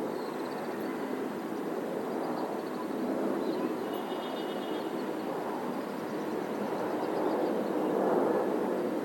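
Steady wash of city traffic noise. Faint high chirps sound over it, with a short, clearer call about four seconds in.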